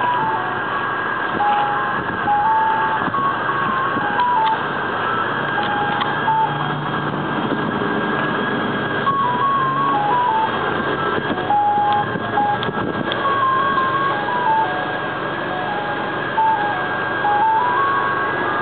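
Ice cream truck's electronic music box playing a simple single-note jingle over and over, with a steady high tone and a constant hum underneath.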